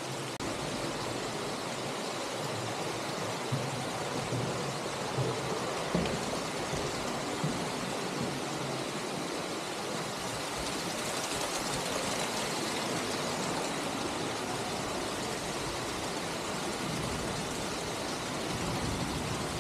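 Steady rushing of an underground stream flowing and falling inside a cave, with a few light knocks.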